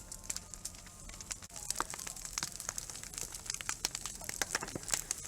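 Wood fire crackling, with many irregular sharp pops and a hiss that grows louder about a second and a half in.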